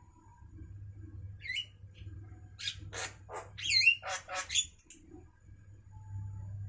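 Javan myna (jalak kerbau) calling: a burst of harsh, raspy notes mixed with whistled notes that bend down and up in pitch, loudest about four seconds in. A low steady hum runs underneath.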